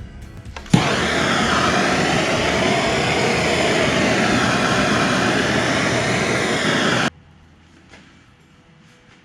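Heat gun blowing hot air for about six seconds, switched on suddenly near the start and cut off abruptly, to soften vinyl striping so it conforms over the fender rivets.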